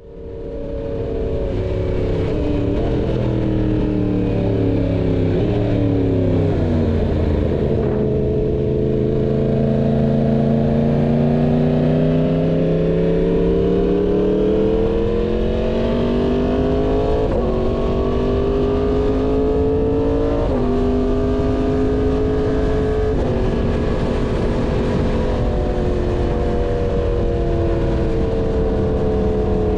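Yamaha MT-10's crossplane inline-four engine running through an SC Project full-system exhaust under way. The engine note rises and falls with road speed, with a few sudden steps in pitch.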